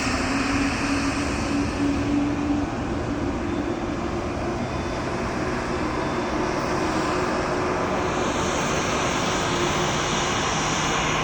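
Boeing 737-800's CFM56 jet engines running at low power on the ground: a steady rumble and whine, with a low hum that fades out a few seconds in and a high hiss that grows again later.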